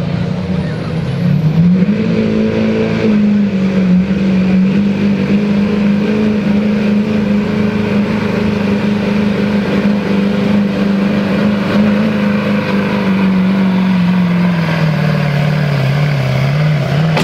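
Chevrolet Silverado pickup's Duramax V8 diesel at high revs under full load, pulling a weight-transfer sled. The engine note climbs about two seconds in, holds steady for most of the pull, then drops over the last few seconds.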